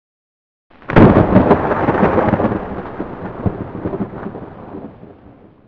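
A thunderclap: a sudden sharp crack about a second in, then a crackling rumble that fades away over the next four seconds or so.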